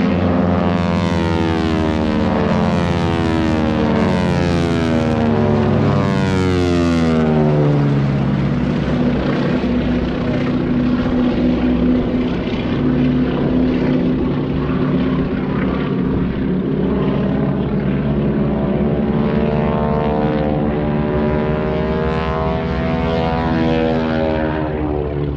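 Several North American T-6 Texan propeller planes with nine-cylinder radial engines flying past overhead in formation. Their engine pitch slides down several times in the first eight seconds as they pass, then settles into a steady drone that swells again near the end.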